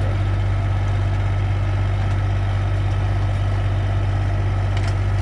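Heavy vehicle engine idling steadily with a constant low hum.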